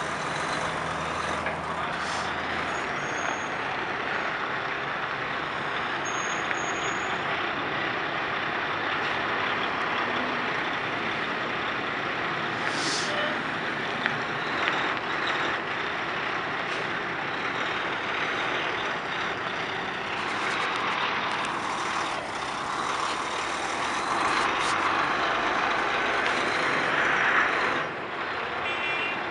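Peterbilt dump truck's diesel engine running steadily as it unloads a load of soil, with a short air-brake hiss about halfway through.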